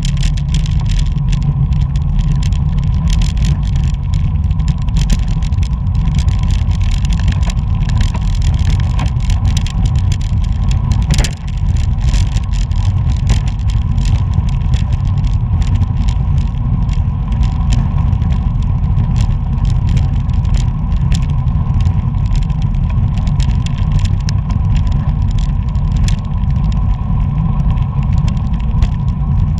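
Wind buffeting a bicycle-mounted action camera's microphone while riding, a steady heavy rumble with frequent small ticks and rattles from the road surface; it drops out briefly about eleven seconds in.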